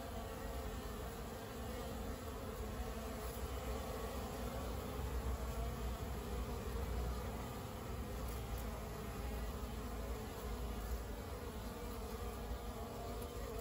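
Honeybees buzzing in flight around a hive entrance, a steady overlapping hum of many wings as bees come and go, over a low rumble.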